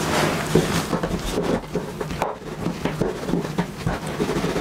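Wooden rolling pin rolling thin circles of khinkali dough on a wooden table, with irregular light knocks and rubbing.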